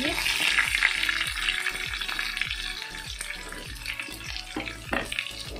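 Garlic and chillies sizzling in hot oil in a kadhai over a high flame, tossed with a wooden spatula. Background music with a steady beat plays over it.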